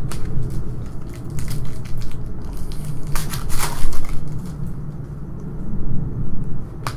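Foil wrapper of a trading-card pack crinkling and crackling as hands open it and handle the cards, in irregular bursts that are loudest about three to four seconds in, with a sharp click near the end.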